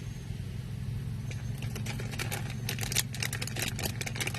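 Quick small clicks and rustles of hands handling packaging and a small rubber earphone case, growing busier from about a second and a half in, over a steady low hum.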